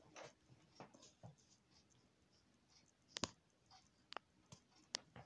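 Near silence with faint handling rustle and a few short, sharp clicks, the first about three seconds in and about four in all.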